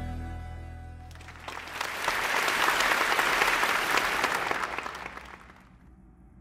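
Soft intro music fading out, then a crowd applauding: the clapping swells about a second in and dies away shortly before the end.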